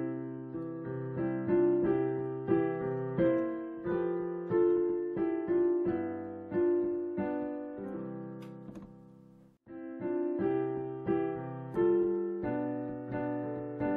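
Instrumental background music: a gentle melody of struck notes, each ringing and fading. About nine and a half seconds in it fades to a brief stop, then starts again.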